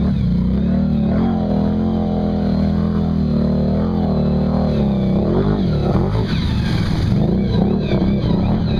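ATV engines running while wading through deep water, the engine pitch wavering up and down as the throttle is worked, most clearly in the first half.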